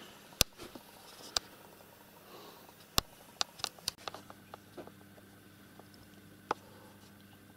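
Scattered sharp clicks and light taps, about ten of them, bunched around the middle. A faint steady low hum sits underneath from about halfway in.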